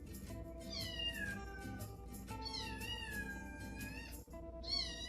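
A cat meowing three times, long drawn-out meows that slide down in pitch, over background music.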